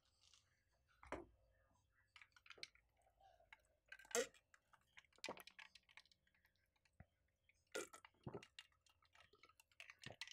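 Faint, close-miked chewing with scattered small mouth clicks and crunches from a person eating Popeyes fried chicken and biscuits, the strongest about four seconds in.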